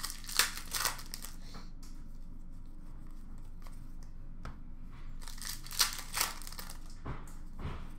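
Foil wrapper of a hockey card pack being torn open and crinkled by hand, in short bursts about half a second in and again in the last couple of seconds.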